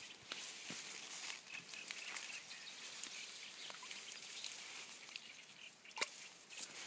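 Quiet rustling of reed leaves and stems brushed by a person moving among them, with scattered light clicks and one sharper tap about six seconds in.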